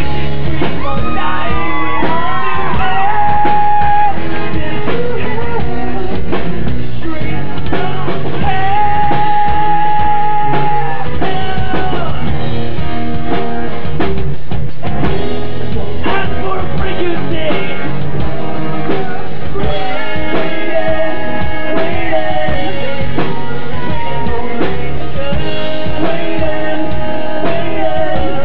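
Live acoustic rock performance: a singer holding long sung notes over guitar and drums.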